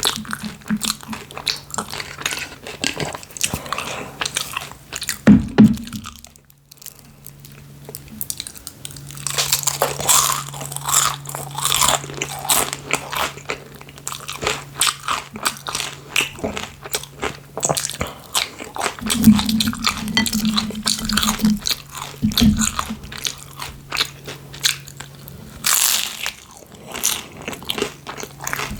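Close-miked chewing of spicy instant noodles: wet, irregular mouth clicks and smacks with a brief pause around a quarter of the way in.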